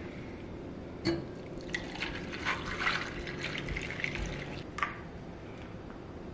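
Margarita poured from a glass pitcher over crushed ice in a glass, liquid splashing and trickling, with a sharp tap about a second in and another near five seconds.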